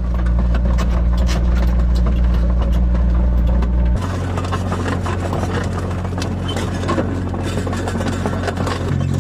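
Takeuchi excavator's diesel engine running, with the clattering and clanking of its steel tracks. The engine note steps down abruptly about four seconds in.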